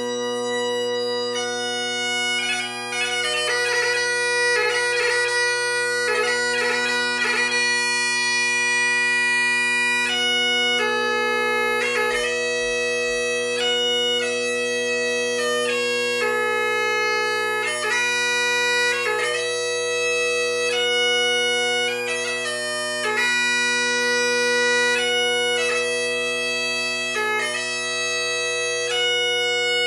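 Great Highland bagpipe playing a piobaireachd: the drones sound steadily under the chanter. A flurry of quick notes in the first few seconds gives way to a slow melody of long held notes, each broken by quick gracenote ornaments.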